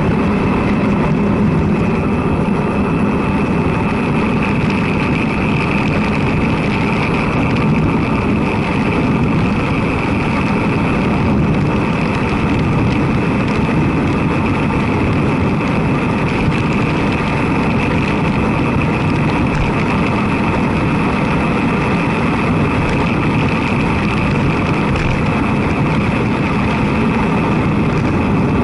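Steady wind and road noise rushing over a bike-mounted camera's microphone while riding a road bike along an asphalt road.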